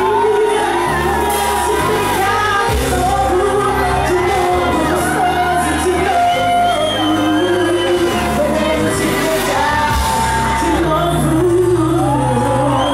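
A woman singing long held notes that slide between pitches into a microphone, over a live band amplified through the PA.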